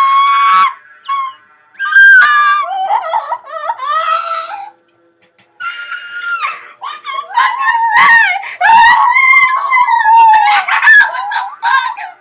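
Two young women screaming and shrieking in high-pitched bursts, breaking off for a moment about five seconds in, then letting out a long run of wailing screams.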